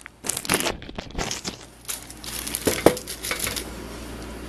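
Packaging being handled as a security DVR is unwrapped from it: a run of rustling and crackling handling noises, with one sharper knock near three seconds in.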